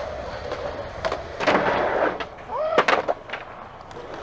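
Skateboard wheels rolling on concrete, with a loud clatter of the board about a second and a half in and sharp clacks of board pop and landing near three seconds.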